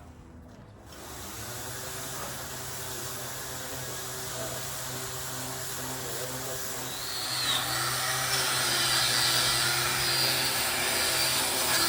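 Electric power tools sanding the steel frame of a boat trailer: a steady motor hum starts about a second in, then becomes louder and harsher with a strong hiss about seven seconds in.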